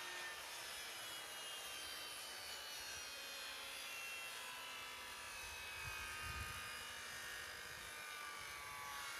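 Faint, steady drone of a distant engine, its several tones sliding slowly in pitch, with a soft low knock about six seconds in.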